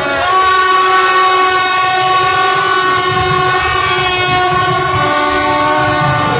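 Many horns sounding together in long, overlapping steady tones at several pitches, from a street crowd of celebrating motorbike riders, over the low running of many motorbike engines.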